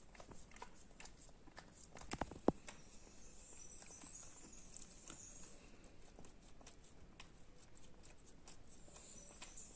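A dog licking and lapping at fruit ice cream: a run of faint wet tongue clicks and smacks, with a sharper, louder knock about two and a half seconds in.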